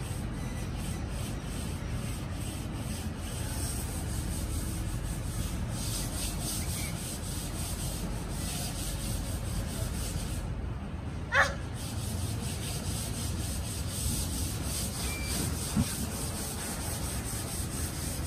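Steady low rumbling noise on the microphone, like wind or handling noise. About eleven seconds in there is one short, high squeak that falls quickly in pitch.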